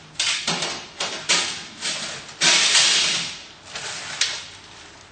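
Plastic bag holding drain tubes and a filling funnel rustling and crinkling in several irregular bursts as it is handled.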